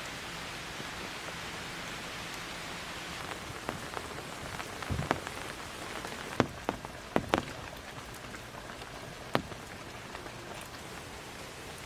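Heavy rain falling steadily on the fabric of a large tent shelter. A handful of sharp clicks and taps come in the middle.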